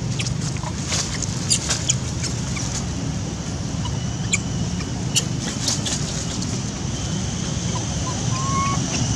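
Outdoor ambience: a steady low rumble of wind on the microphone, with scattered sharp clicks and a few short chirps, one a brief rising whistle near the end.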